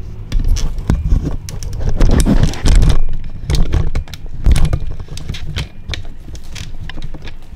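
A wooden stick shipping frame knocking and rattling, with the newspaper wrapping inside it crackling, as a cat tugs at the rope that ties it. The knocks and scrapes come irregularly, busiest about two to three seconds in.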